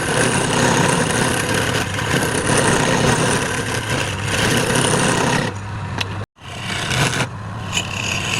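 Wood lathe running, a dense steady mechanical noise with a low hum, which cuts out completely for a moment about six seconds in.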